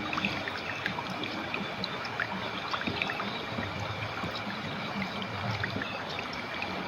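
Clear river water flowing steadily, a continuous rush dotted with many small splashes and gurgles.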